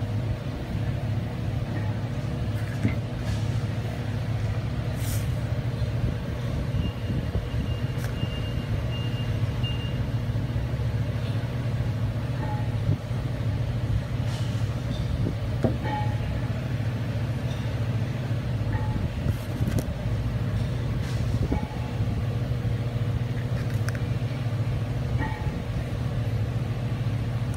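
Steady low mechanical hum with a constant tone above it, with occasional light clicks of metal parts being handled and a short run of faint high beeps about seven seconds in.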